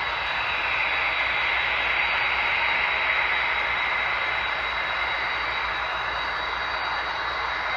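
A model subway train running along three-rail model track: a steady whirring rush of its motors and wheels, swelling slightly a couple of seconds in as the cars pass close, with a thin high whine underneath.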